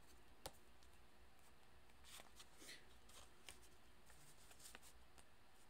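Faint hand-shuffling of a deck of cards: a few soft, scattered card snaps and slides over a low steady room hum.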